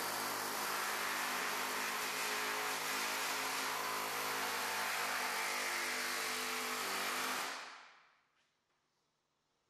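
Pneumatic air hammer fitted with a Skin Zipper forming head, running steadily as it hammers the flange of a steel car door skin over onto the door frame. It stops about seven and a half seconds in.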